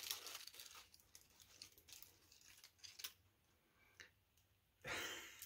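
Near silence with faint scattered clicks and light rustling of small plastic doll accessories and packaging being handled, and a short louder rustle near the end.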